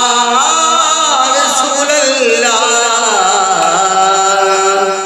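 A boy's solo voice singing a naat (devotional poem in praise of the Prophet), drawing out a long melismatic phrase with ornamented, wavering pitch, then settling on a held note near the end.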